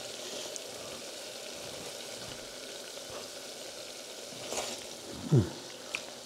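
Seasoned potatoes frying in oil in a cast iron pot, a steady sizzle. About five seconds in, a short hum of a voice, falling in pitch, rises over it.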